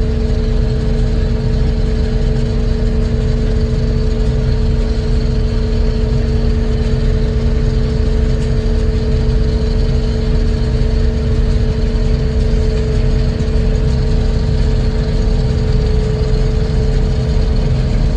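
Combine harvester running steadily while cutting soybeans: a constant engine drone with an even, unchanging hum.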